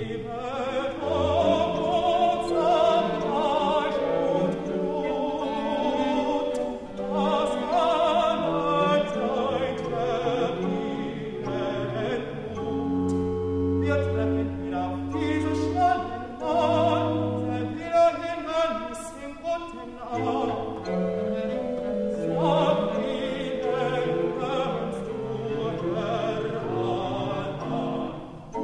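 Operatic-style classical singing over a small baroque ensemble, with a cello and chamber organ holding a sustained bass line.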